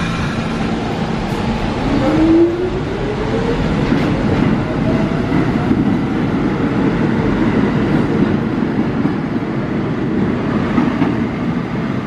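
A New York City subway train pulls out of an underground station. A motor whine rises in pitch as the train gathers speed over the first few seconds, then the wheels rumble and clatter along the rails as the cars roll past.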